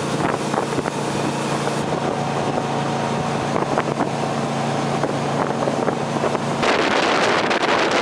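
Boat motor running steadily under wind noise on the microphone. About two-thirds of the way in, the motor hum drops out and a louder rush of wind and water noise takes over.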